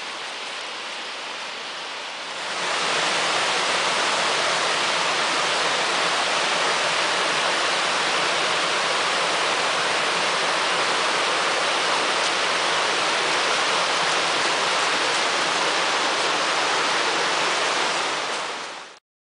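Rocky mountain stream rushing over boulders and small waterfalls, a steady hiss of water. It is softer at first, jumps louder about two and a half seconds in, and cuts off abruptly near the end.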